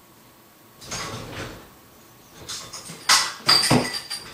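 Dishes and cutlery clattering in an open dishwasher rack as it is rummaged through for a spoon: a soft rustle about a second in, then several sharp clinks with a brief metallic ring in the last second or so.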